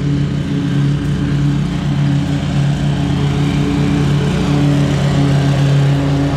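Scag V-Ride stand-on mower's engine running steadily as the mower drives across the lawn.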